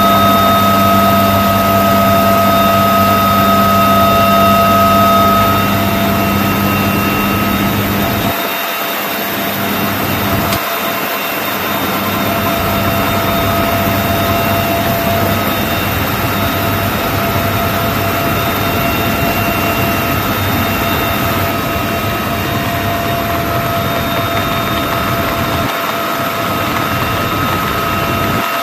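Military helicopter noise heard from inside the open cabin: a loud, steady turbine whine with several high tones over a broad drone. The deepest part of the drone drops out briefly a few times.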